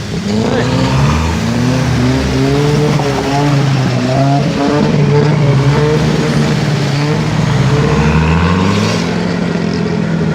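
Off-road 4x4 vehicle's engine revving hard, its pitch climbing and dropping several times as the throttle is worked.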